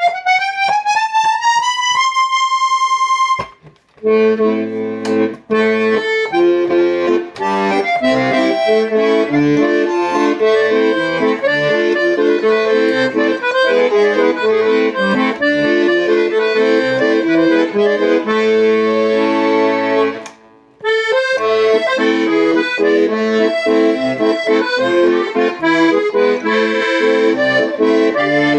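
Delicia Amoretta accordion being played: a quick rising run ends on a held high note, then after a short break a tune with melody and chords over a bass line, pausing briefly about two-thirds of the way in.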